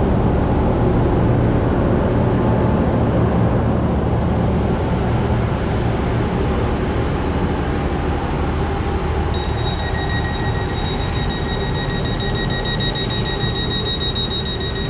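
Electric trains standing at a station platform: a steady rumble and hum of their running equipment. A steady high-pitched whine joins about ten seconds in.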